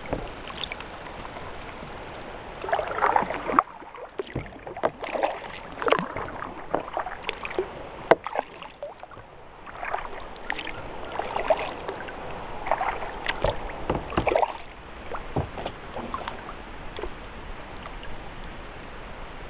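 Kayak paddle dipping and splashing in calm lake water, stroke after stroke at an uneven pace, with one sharp click about eight seconds in. The strokes thin out and grow quieter near the end.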